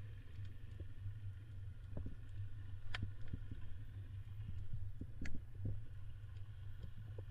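Underwater sound on a reef: a steady low rumble with scattered sharp clicks, the loudest about three and five seconds in.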